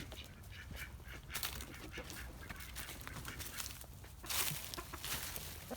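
Farmyard poultry, led by guinea fowl, making a constant ruckus: a rapid string of harsh, repeated squawks, loudest about four seconds in.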